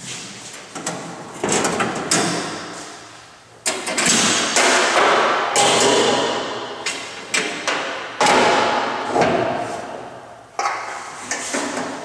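The 1965 International Scout's engine is revved in repeated throttle blips. Each surge comes in suddenly and dies away over a second or two, and the surges run several seconds apart.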